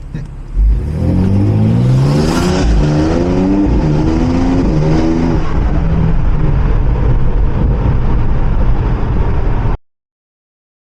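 BMW X3 M Competition's twin-turbo straight-six accelerating hard with an aftermarket cold air intake, the engine note climbing in pitch with a loud turbo and intake whoosh, then running steadily until the sound cuts off suddenly near the end.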